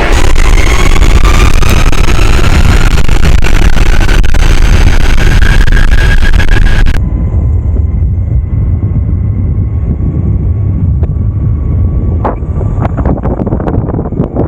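Electric skateboard riding at speed: wind buffeting the microphone, wheel rumble, and a motor whine that rises steadily in pitch as the board accelerates. About seven seconds in, the high hiss cuts off suddenly, leaving the low rumble, with a few sharp clicks near the end.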